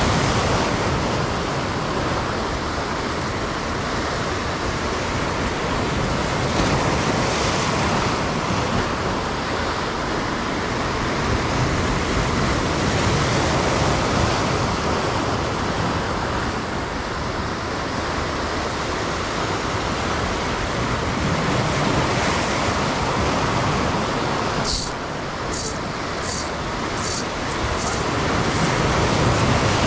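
Steady rushing noise of wind and sea on the microphone, with a brief string of sharp clicks near the end.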